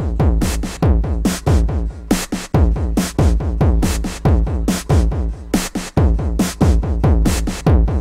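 Electronic music played live on synthesizers and a drum machine: a steady, driving beat of sharp, crisp hits over deep low hits that slide down in pitch.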